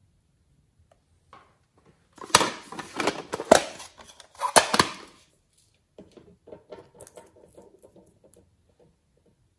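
Hard plastic makeup case handled and opened: three sharp plastic clicks about a second apart amid rattling, then softer small crackling clicks as the cap of a nail polish bottle is twisted open.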